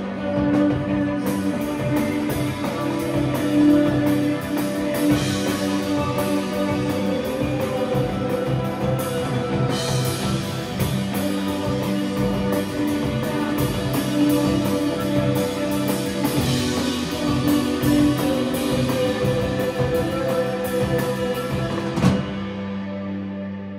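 Live rock band, with distorted electric guitars and a drum kit, playing loudly through the close of a song. About 22 seconds in, the drums stop on a final hit and the guitars let one last chord ring out and fade.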